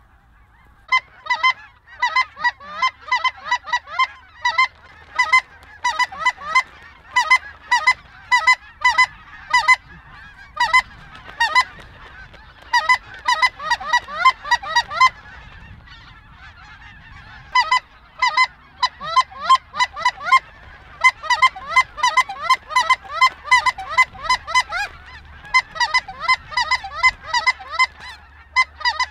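Snow geese calling: many short, high honks in quick overlapping runs, with a brief lull about halfway through.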